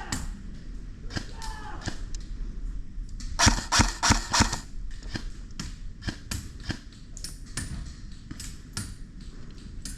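A quick string of about half a dozen airsoft rifle shots about three and a half seconds in, among scattered lighter clicks and ticks.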